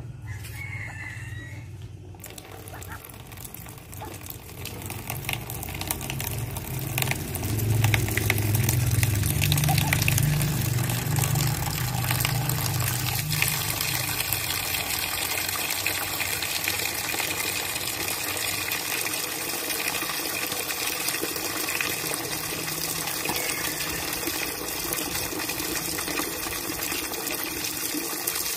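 A stream of water pouring into a plastic basin, starting about two seconds in and running steadily, louder from about seven seconds on. A low hum sits underneath through the first half.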